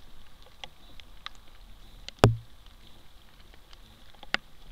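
Roe deer moving right beside the microphone: scattered light ticks and rustles of hooves and twigs, with one sharp knock about two seconds in and a smaller click near the end, over a faint steady high whine.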